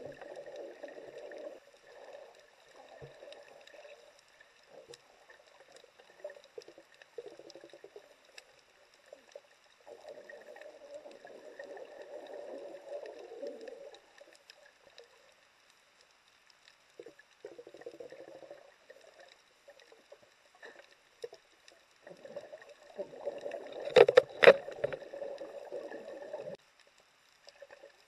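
Muffled underwater sound picked up by a camera submerged at a coral reef: water rushing and swishing in irregular surges a few seconds long, with a faint steady high hum. A few sharp knocks come near the end.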